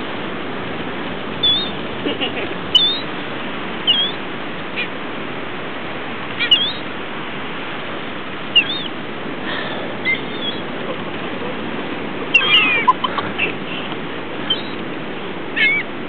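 Gulls giving short, high, scattered calls, with a small cluster of calls about twelve seconds in, over a steady background hiss.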